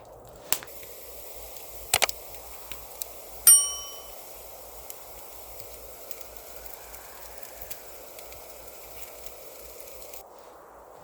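A few light metal clinks, then one loud ringing clang of metal cookware about three and a half seconds in, over a steady hiss that stops suddenly near the end.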